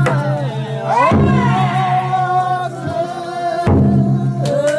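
Festival song: voices singing long held, wavering notes in a chant-like melody over a steady low hum, with two sharp drum strokes, one about a second in and one near the end.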